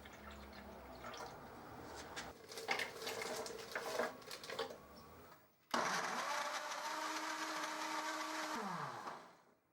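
Several clicks and knocks, then a small electric motor runs steadily for about three and a half seconds and is switched off, its pitch falling as it winds down.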